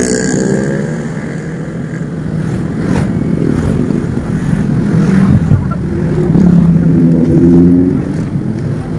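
Motor traffic passing close by on a road. A motorcycle goes past at the start, its engine note falling, then cars drive by, with an engine drone loudest from about six to eight seconds in.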